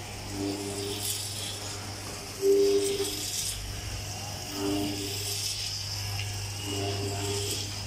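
Modular plastic chain conveyor running, its electric motor and worm gearbox giving a steady low hum with a light mechanical rattle. A low two-note tone sounds briefly about every two seconds over it.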